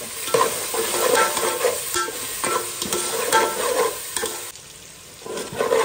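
Metal spoon stirring and scraping a thick frying masala in a metal pot, with the masala sizzling. The strokes come in quick irregular succession, pause briefly near the end, then start again.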